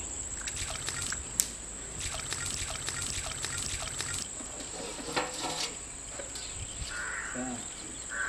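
Outdoor field ambience: a steady high-pitched insect drone with scattered light clicks and rustles, and a short animal call near the end.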